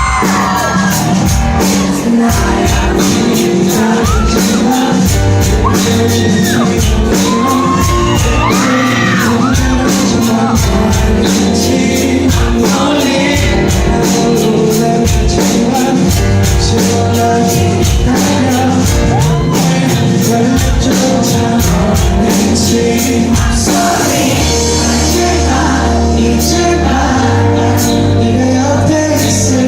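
Live band playing loudly through amplifiers, drums keeping a steady beat under guitars and sustained chords, with wordless vocal lines and audience shouts over the music.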